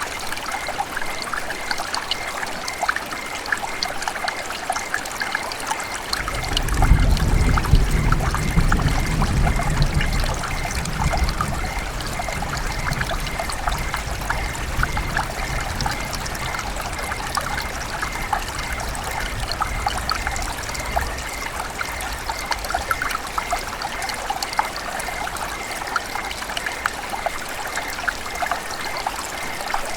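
River water trickling and splashing in a steady run, full of small droplet splashes. A low rumble joins it from about six seconds in and fades out again around twelve seconds.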